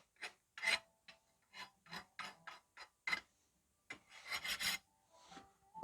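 Hand file scraped in short, uneven strokes across a steel knife blade, knocking off leftover heat-treat clay after normalizing, with a quick run of strokes about four seconds in.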